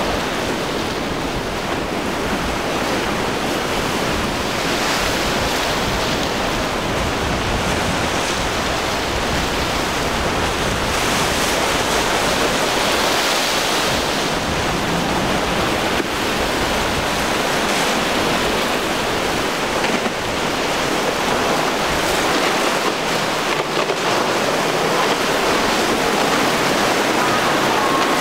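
Steady rush of wind buffeting the microphone over choppy waves and surf.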